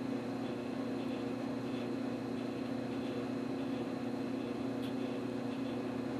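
Steady hum with a faint hiss: workshop room tone. One faint tick about five seconds in.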